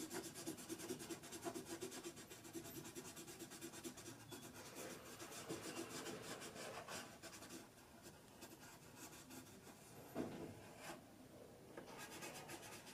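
Faint graphite pencil scratching on paper in quick, repeated short strokes as hair is shaded in. The strokes are dense at first, then thin out and grow quieter, with one louder stroke near the end.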